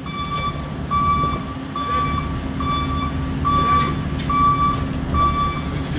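Raymond forklift's warning beeper sounding a steady series of short, even beeps, a little under one a second, over a steady low hum from the running truck.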